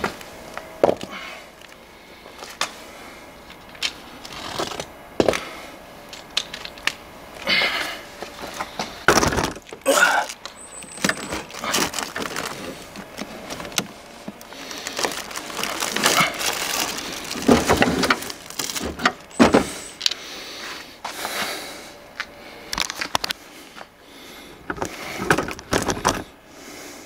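A replacement car battery being lifted and set down by hand into its engine-bay tray: irregular knocks and clunks of the battery case against the tray and surrounding parts, with some rustling.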